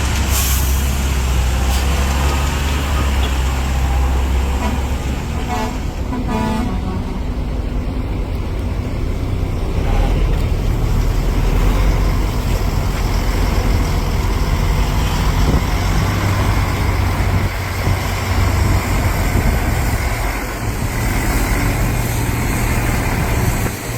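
Caterpillar 330 excavator's diesel engine working under load, with the engine note rising and falling as it digs and swings, and heavy-truck engine noise mixed in. A brief high pitched tone sounds about six seconds in.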